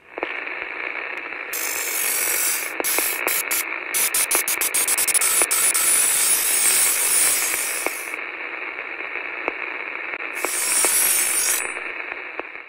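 Electronic static hiss like a radio between stations, with louder bursts of crackling noise about a second and a half in, through the middle, and again near the end, and scattered clicks: a glitch-static sound effect.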